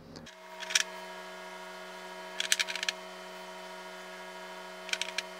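Red pepper flakes being sprinkled by hand onto a tray of raw pork jerky strips, heard as three short bursts of light, crisp rattling about two seconds apart. A steady hum runs underneath.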